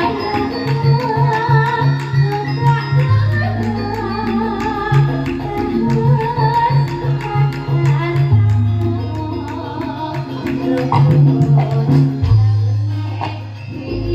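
Live band music: a sung or melodic line wavering over sustained bass notes and a steady percussion beat.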